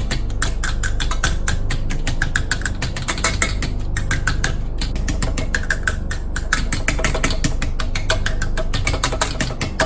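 Rapid, irregular clicking and tapping of a utensil smashing canned potatoes in a dish, over a steady low hum.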